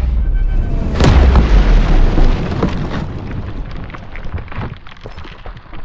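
A low rumble, then a sharp explosion about a second in that dies away slowly in a long rumble.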